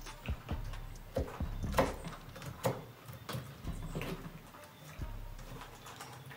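Kitchen knife chopping on a mango-wood cutting board, a series of irregular knocks, over background music.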